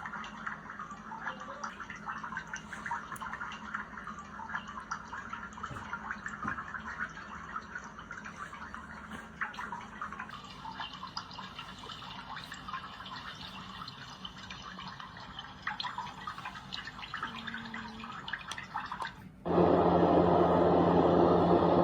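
White noise machine playing a running-water sound with many small drips and trickles. About 19 seconds in it switches abruptly to a louder, steady rushing noise.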